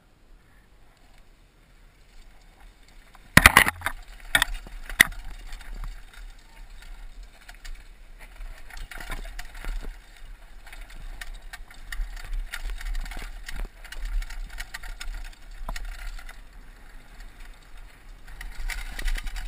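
Downhill mountain bike ridden down a dusty forest trail: tyre noise on the dirt and the bike rattling and clicking over bumps, with a few sharp knocks about three and a half seconds in as it sets off. A low wind rumble sits on the helmet camera's microphone.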